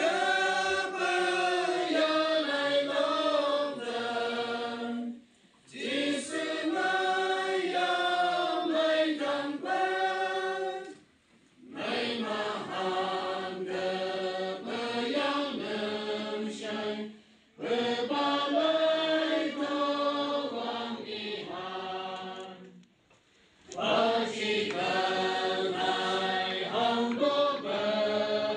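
A church congregation of women and men singing a hymn together from hymnals, line by line, each sung line about five or six seconds long with a short break between lines.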